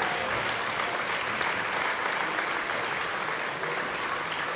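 Concert audience applauding: steady clapping from many hands, easing slightly near the end.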